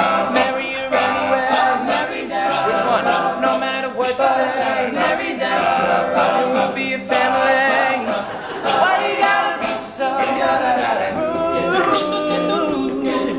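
All-male a cappella group singing a wordless instrumental break, several voices carrying the chords and backing lines while vocal percussion keeps a steady beat.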